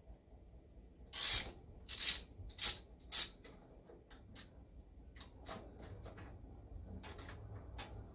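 Metal hand tool working the connecting-rod big-end bearing cap bolts inside the crankcase of an International Type M engine: four short rasping scrapes of metal on metal in the first few seconds, then lighter clicks and taps.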